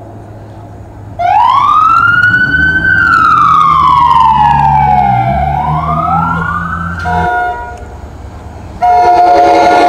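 Police car siren wailing, rising, falling slowly, and rising again, over a low engine rumble, and cutting off about seven seconds in. Just before the end an approaching NJ Transit commuter train sounds its horn, a loud steady chord of several notes.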